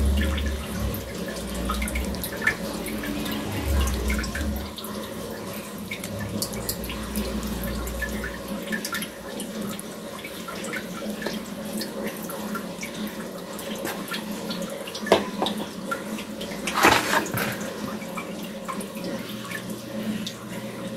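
Wet kitchen handling noises: hands packing moist shredded cabbage-and-carrot filling into fried tofu pouches and setting them in flour batter, with scattered small clicks and a louder patch of clicking about 17 seconds in. A low rumble runs through the first eight seconds or so, under a faint steady hum.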